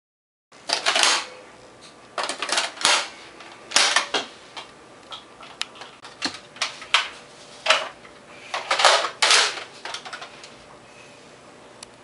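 Plastic clacks and short sliding rasps of a Nerf Recon blaster being handled and primed, coming in irregular bunches with quieter gaps.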